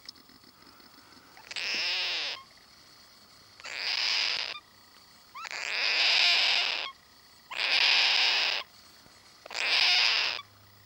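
Young cockatoo giving five raspy, hissing calls, each about a second long, roughly every two seconds.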